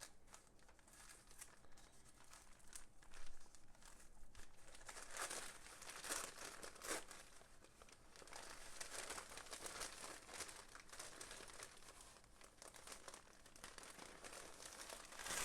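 Packaging crinkling and rustling in irregular bursts as a boxed auto part is unwrapped and pulled out by hand, with a few louder rustles along the way.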